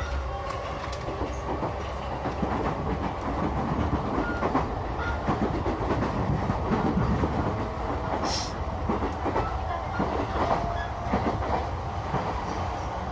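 Electric train running along the track, heard from inside the carriage: a steady low rumble with wheels clattering over the rail joints. There is a brief hiss about eight seconds in.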